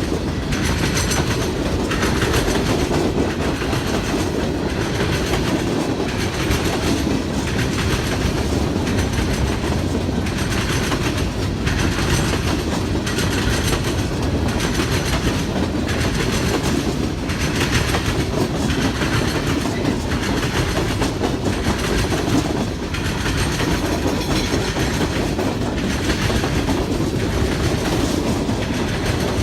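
A train of empty gondola freight cars rolling past: a steady rumble with a regular clickety-clack as the wheels pass over rail joints.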